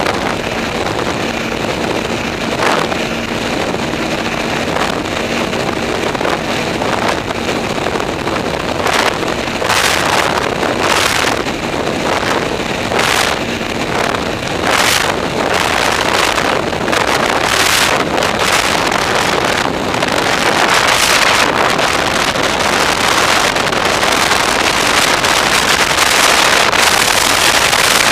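Snowmobile engine running under way, mixed with wind buffeting the microphone. Gusts of wind noise come and go from about ten seconds in, and the overall sound grows gradually louder toward the end.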